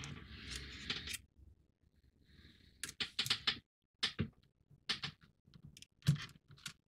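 Rustling, then a run of small sharp plastic clicks from about three seconds in, as LED leads are handled and plugged into a socket on a model's circuit board and worked through its plastic frame.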